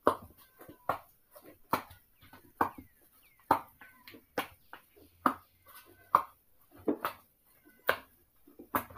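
Bread dough being kneaded by hand in a plastic bowl: a fist pressing and slapping into the wet dough in a steady rhythm, about one stroke a second.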